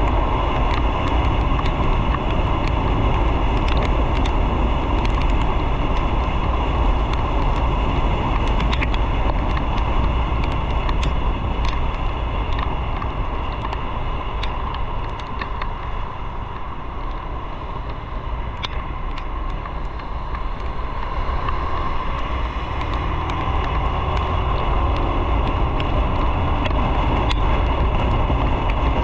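Riding on a motorcycle: wind rushing over the microphone along with engine and road noise. It eases off about halfway through and builds again near the end.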